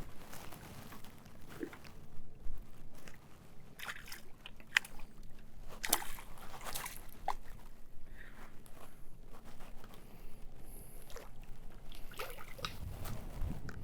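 Water splashing, sloshing and dripping at the side of a canoe, with scattered sharp clicks and knocks, while a hooked bream is played on light tackle.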